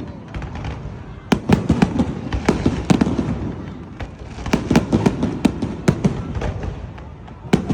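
Aerial fireworks display: quick volleys of sharp bangs and crackles, one starting about a second in and another about halfway through, with a lower rumble between them and a fresh volley just at the end.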